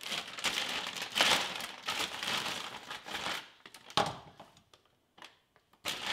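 Plastic bag of frozen leaf spinach crinkling as it is handled and rummaged in, with a sharp knock about four seconds in and more crinkling near the end.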